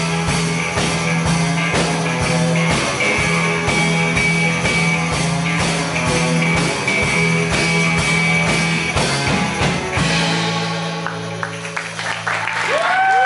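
Live country-rock band of acoustic and electric guitars, drum kit and tambourine playing the last bars of a song with a steady beat, then stopping on a final chord about ten seconds in that rings out. Near the end, a rising whoop from a voice.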